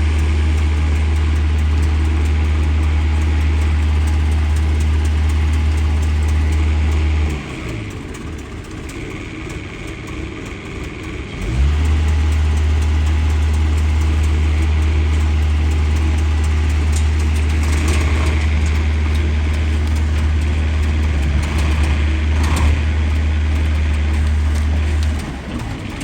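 Heavy equipment's engine running steadily with a deep rumble. It drops away about seven seconds in and comes back about four seconds later, then cuts out near the end.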